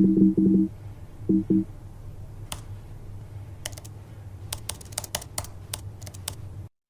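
The sparse outro of a pop song: a few short low pulsed tones, then a low hum with scattered sharp clicks like typing. It cuts off to silence near the end.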